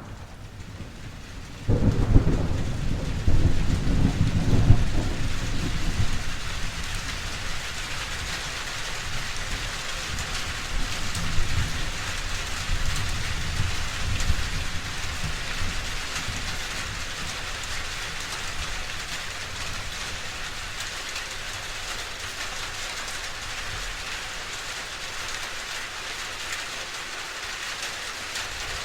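Steady rain falling, with a sudden clap of thunder about two seconds in that rolls on for several seconds, and a fainter rumble of thunder a little later.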